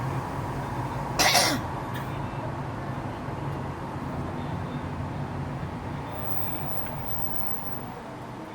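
A person coughs or clears their throat once, briefly and loudly, about a second in, over a steady low vehicle drone.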